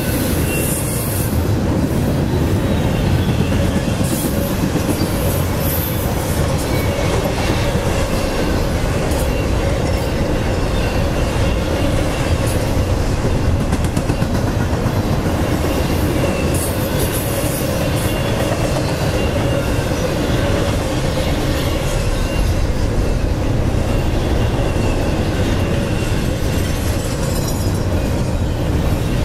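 Freight cars of a CSX double-stack intermodal train rolling past: steady wheel-on-rail noise with clatter from the cars and a thin high wheel squeal running through it.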